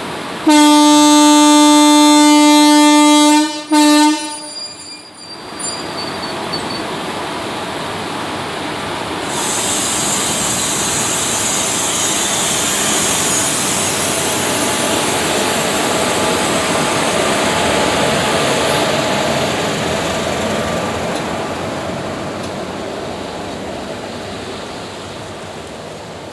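WAP-4 electric locomotive sounding its horn in one long blast of about three seconds, then a short second toot. The departing passenger train then rolls past, locomotive and coaches, with a steady rumble that builds and slowly fades near the end.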